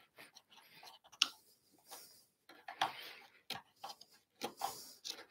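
A long chisel pushed by hand into a mortice, its edge scraping against the wood and levering out waste, with irregular sharp clicks as wood fibres between the drill holes break off; the sharpest click comes about a second in.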